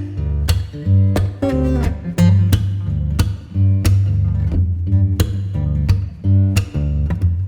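Background music: acoustic guitar over a steady bass and beat.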